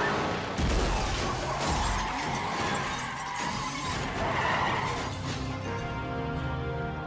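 Film soundtrack music under a crash of shattering glass and metal, with heavy thuds about half a second and again about a second and a half in.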